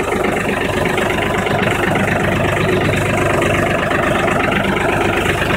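Farmtrac 45 Smart tractor's diesel engine idling steadily.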